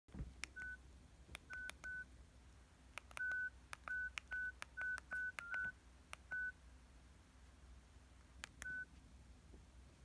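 Number keys on a basic mobile phone pressed one by one to dial a phone number: eleven short, single-pitch keypad beeps at uneven intervals, each with a click from the button press.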